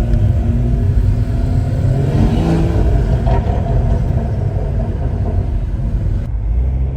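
Engine and exhaust of a Stage 2 tuned BMW 540i with a custom exhaust, running under way: a loud, deep, steady note.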